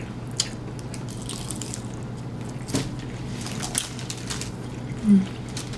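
Close-miked eating of tacos: wet chewing, smacking and small crunches in quick irregular clicks, with a brief voiced hum about five seconds in.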